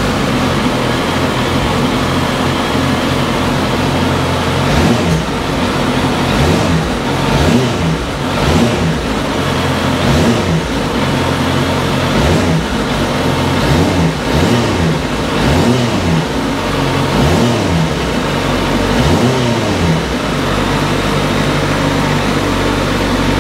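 2010 Suzuki GSX650F's 656 cc inline-four engine idling, then revved in a series of quick throttle blips from about five seconds in, each rising and falling back, before settling to a steady idle near the end.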